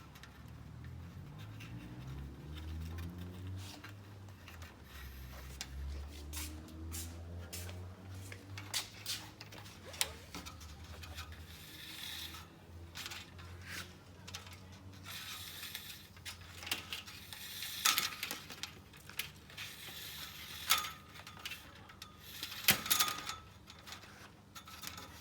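Electrical wiring being pulled and fed through a caravan's body: rubbing, scraping and scattered sharp clicks that grow busier and louder in the second half. A low rumble with slowly shifting pitch runs underneath through the first half.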